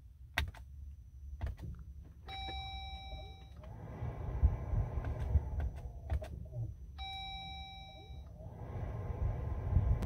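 Jeep Gladiator dashboard chime dinging twice, about five seconds apart, each ding ringing for about a second, as the push-button start cycles the ignition. Small button clicks come before the first ding, and a low rumble runs under the second half.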